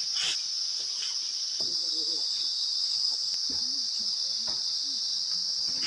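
Steady high-pitched insect chorus of crickets, unbroken throughout, with faint voices talking in the background.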